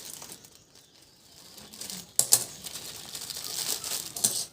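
Parcel packaging being handled and opened, rustling and crinkling, with a sharp crackle a little over two seconds in.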